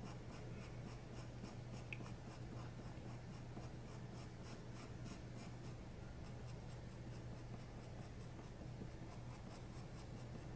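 Castle Art soft-touch colored pencil scratching on paper in quick, even back-and-forth shading strokes, about four a second, faint.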